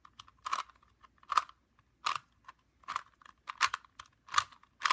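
Rubik's Cube being twisted by hand: a series of short plastic clicks as the layers are turned, about one turn every three quarters of a second.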